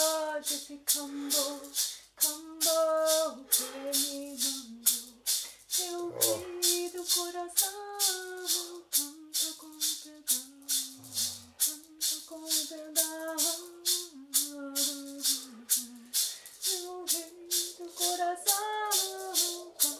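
A voice singing a slow melody in long held notes, accompanied by a shaker rattle shaken steadily about three times a second.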